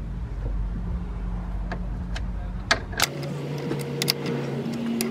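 Breaker bar and 16 mm socket on the car's strut tower bolts, giving several sharp metallic clicks as the bolts are worked loose. A steady low hum runs underneath and changes pitch about three seconds in.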